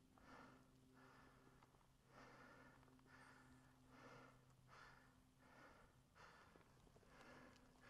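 Faint breathing close to a head-mounted camera's microphone, soft breaths coming steadily about once a second, with a faint steady hum underneath.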